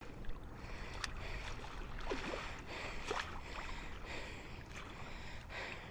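Shallow water splashing and lapping at the river's edge as a lemon shark is let go in the shallows, with a few short, sharper splashes.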